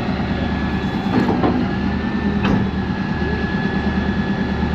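Large Caterpillar crawler bulldozer running, its diesel engine and steel tracks making a steady, rhythmic low pulsing with clatter, over a faint high steady whine.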